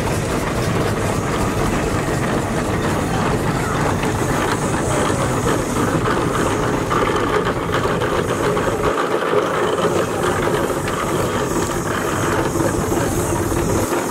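John Fowler steam traction engine running as it drives slowly past, with a steady mechanical clatter from its motion.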